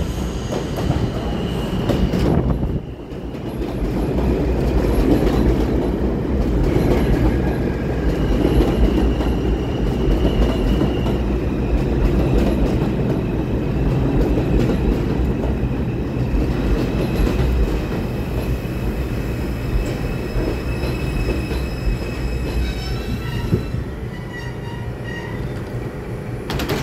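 R142 subway train pulling into the station and slowing to a stop: a heavy, steady rumble of wheels on rail that grows loud about four seconds in, with a high steady squeal riding over it for much of the arrival.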